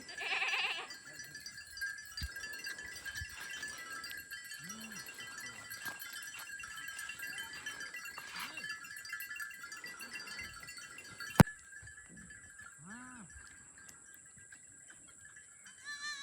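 An animal bleating with a quavering call, once right at the start and again near the end, over two steady high-pitched tones. About eleven seconds in there is a single sharp click, the loudest sound here.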